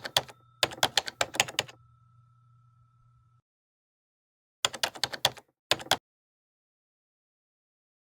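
Rapid keystrokes of typing on a keyboard in short runs: one brief run at the start, a longer run of about a second, then two more short runs about five seconds in, with silence between them.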